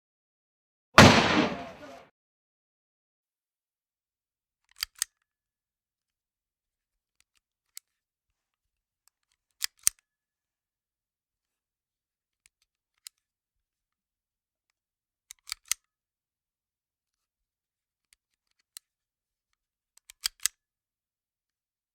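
A single gunshot about a second in, dying away over about a second. Then come sharp metallic double clicks about every five seconds, with faint single clicks between them, typical of a gun's action being worked.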